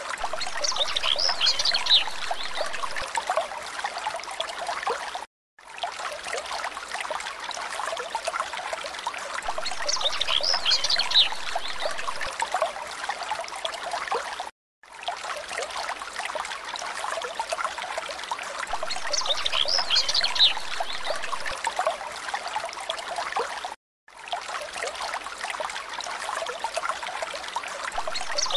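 Looped background track of trickling stream water, repeating about every nine seconds with a brief dropout between repeats. A short burst of high chirping comes once in each repeat.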